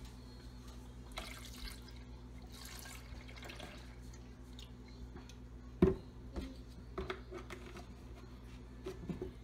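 Almond milk poured into a plastic blender pitcher of coffee, a splashing pour lasting about three seconds. About six seconds in comes a sharp knock, followed by a few lighter taps.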